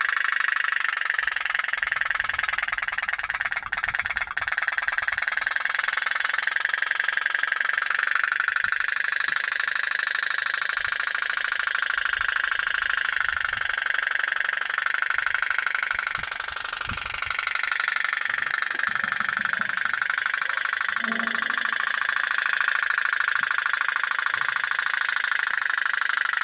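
Pop-pop boat running: its small steam boiler pops in a rapid, steady, even putt-putt that drives the boat along.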